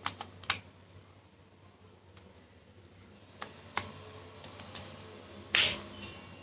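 Scattered sharp plastic clicks from the parts of a Sony TV remote being handled and pressed into place, with a longer, louder click about five and a half seconds in.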